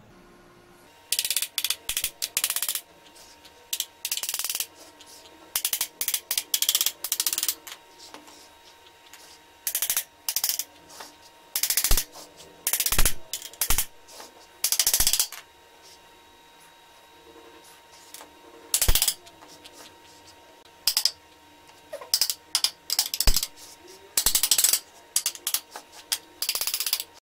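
Small hammer tapping on the metal housing of a Honda 600 VA portable generator, in clusters of quick taps with short pauses between, knocking the generator casing loose from the engine.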